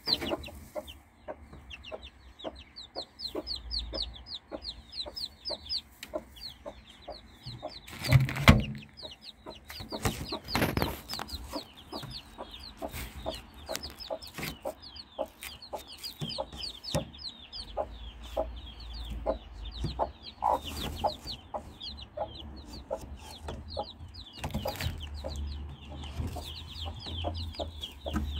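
Newly hatched chicks peeping constantly in quick, high, falling notes while the broody hen keeps up low, repeated clucks. There is a loud thump about a third of the way in, and a lesser one shortly after.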